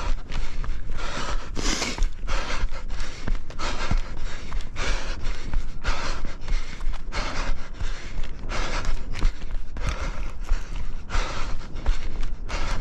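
A running orienteer's breathing, close to a head-mounted microphone, in a steady rhythm of about three breaths every two seconds, with footsteps underneath.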